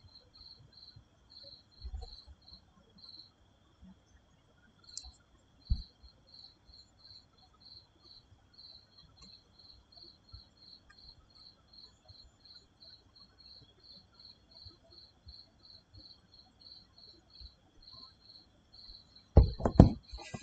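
Faint insect chirping: a high chirp repeated about two or three times a second over a steady high-pitched trill. A few loud thumps near the end.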